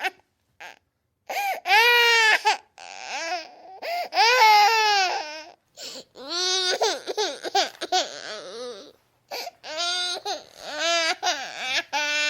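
A baby crying: a series of long, high wails that bend up and down in pitch, about four bouts broken by short sobs and brief silent gaps.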